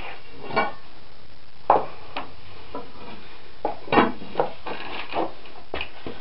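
Steel spud bar knocking and clinking against the base of a horizontal milling machine and the wooden 2x4 blocks as it is set for a lever. Scattered irregular knocks, a few ringing briefly, the loudest about two and four seconds in.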